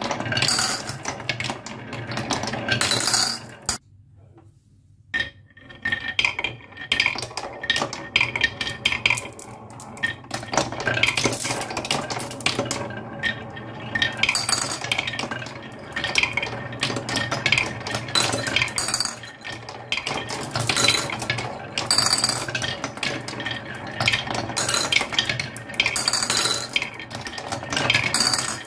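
Marbles clattering along a wooden marble run and circling in a wooden bowl tray, a dense run of clicks and clacks of the balls against the wood and against each other. The clatter drops away for about a second around four seconds in, then resumes.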